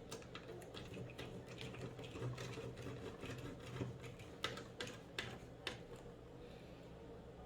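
Irregular small clicks and taps of a PC case fan being handled and fitted back onto the computer case, with a few sharper knocks in the second half, over a low steady hum.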